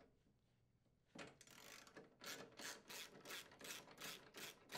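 Faint, even clicking of a ratcheting driver with a socket, about three clicks a second, as it unthreads a screw from the auger housing of a Toro snowblower. The clicking starts about a second in.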